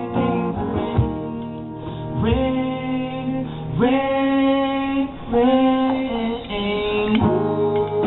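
Small live acoustic band playing: acoustic guitar with a voice singing, holding three long notes in the middle stretch.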